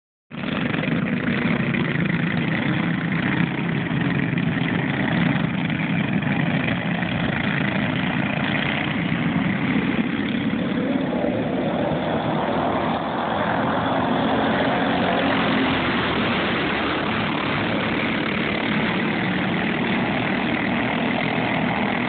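A pack of racing go-karts' small engines buzzing at high revs around the track, with the pitch sweeping up about halfway through as the karts accelerate.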